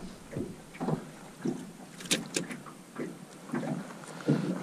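Handling noises as a crappie is worked out of a mesh landing net on the boat deck: irregular light knocks and rustles, with three sharp clicks in quick succession about two seconds in.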